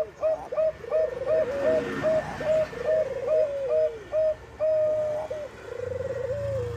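Zebra dove (Bangkok perkutut) cooing: a rapid series of short clipped coo notes broken by quick rolling trills, repeated over and over.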